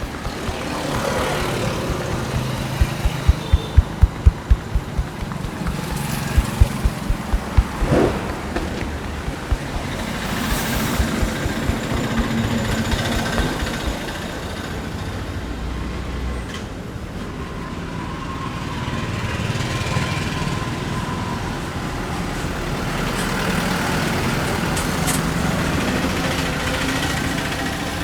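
Rapid rhythmic hand taps of a back-tapping massage, about three to four a second, in two runs in the first eight seconds. Steady street traffic noise runs underneath and carries on after the tapping stops.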